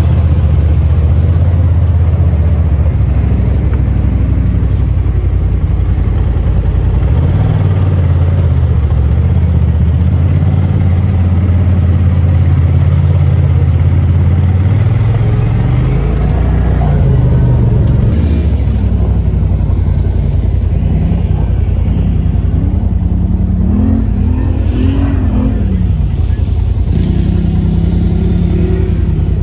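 Side-by-side UTV engine running steadily while driving a dirt trail, heard from on board. After a cut about two-thirds of the way in, off-road engines rev up and down, rising and falling in pitch, as a side-by-side works over a sand dune.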